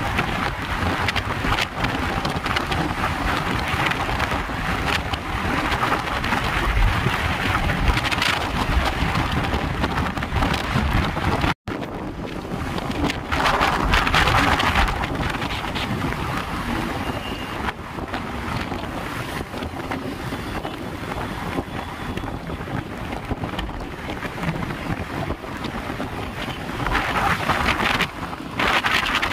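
Heavy wind noise on the microphone from a vehicle moving at speed along a highway, with road and traffic noise underneath. The sound breaks off for an instant about a third of the way through.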